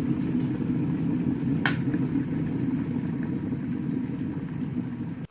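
Glass electric kettle at a full rolling boil, a steady low rumbling of churning water. Its switch clicks off sharply about a second and a half in, and the boiling rumble carries on.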